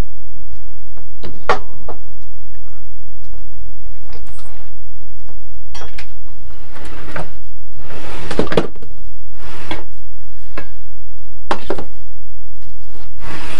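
Tools and objects being picked up and set down on a wooden workbench: scattered knocks and clatters, several close together past the middle, over a steady low hum.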